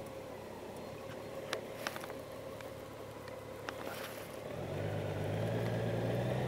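Honda Gold Wing motorcycle engine running at low speed, with road noise and a steady hum; about four and a half seconds in, the engine grows louder as it pulls harder. A few light clicks in the first few seconds.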